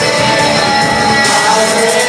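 Live band music played loud through a PA, with amplified guitar and singing holding long notes.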